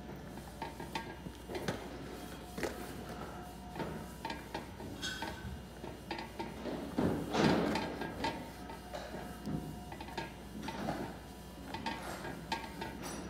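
Cloth rubbing over a waxed mould surface as the wax is buffed off, loudest about halfway through, with scattered light knocks and clatter.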